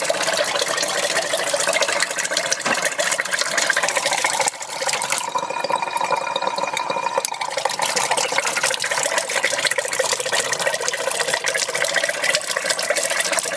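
Water gushing and spitting out of a cracked-open hot-water outlet as a newly plumbed water heater fills, the incoming water pushing air out of the tank. The flow briefly eases about four and a half seconds in, then carries on.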